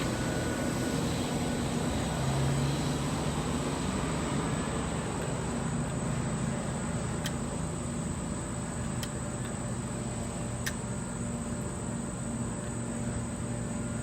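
DJI Mavic 2 Pro quadcopter's propellers humming steadily in flight, with a few faint clicks in the second half.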